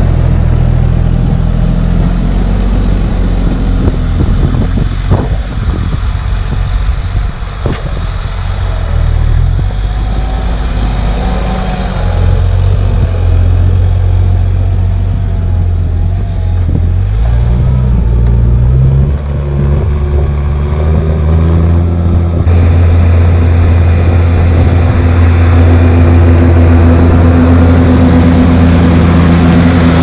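Lamborghini R6.185 DCR tractor's six-cylinder diesel engine running steadily under load as it pulls a five-furrow reversible plough through heavy wet soil, with a couple of sharp knocks in the first third.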